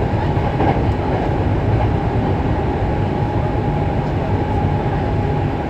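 Running noise of a Hankyu 6300 series electric train car, recorded over the line breaker under the floor: a steady, loud rumble of wheels and running gear with a faint steady high tone.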